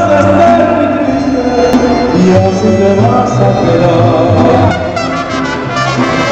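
Mariachi band playing live: guitars and violins, with the lead singer singing into a microphone.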